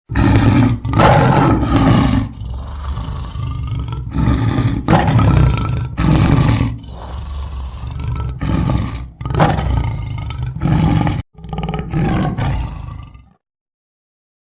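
A wild animal giving a series of loud, deep calls, about eight in a row with short gaps between, that stop about 13 seconds in.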